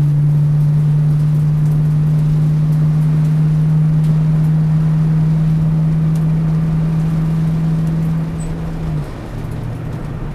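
Holden V8 race car's engine heard from inside the cabin, running at steady revs with an even, unchanging note over road and wind noise, then easing off and dropping lower about eight to nine seconds in.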